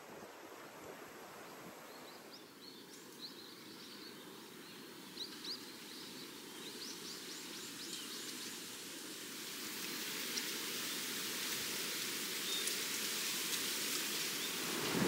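Quiet outdoor ambience: a few short, high bird chirps in the first half, then a steady rush of wind that swells toward the end.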